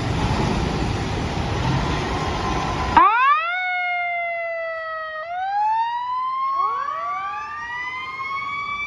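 A loud rushing noise for about three seconds, then a fire-engine siren wails in. It winds up, slides down a little, then winds up again, with a second siren rising over it in the last couple of seconds.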